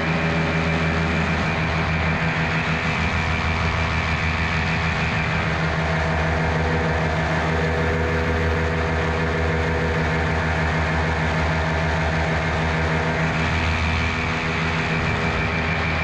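Miniplane Top 80 paramotor's two-stroke engine and propeller running steadily under power, with a slight dip in level about fourteen seconds in.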